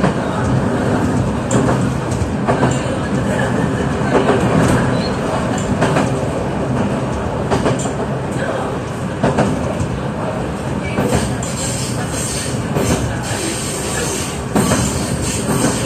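Electric train running at speed, heard from inside the driver's cab: a steady rumble of wheels and running gear, with clicks of the wheels passing over rail joints that come more often near the end.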